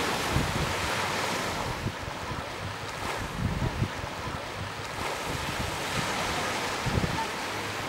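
Sea surf breaking and washing over rocks and pebbles at the shoreline, with wind buffeting the microphone in gusty low rumbles.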